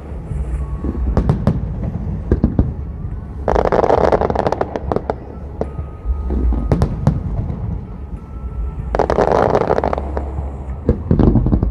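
Aerial fireworks shells bursting in a rapid series of sharp bangs. Two longer stretches of dense noise come about three and a half seconds in and again about nine seconds in.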